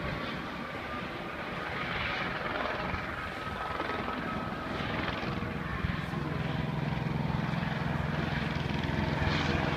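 A steady engine drone that grows stronger about six seconds in, with a faint high whine above it.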